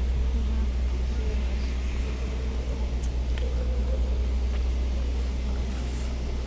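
Steady low rumble of wind buffeting the camera microphone outdoors, with one short sharp click about three seconds in.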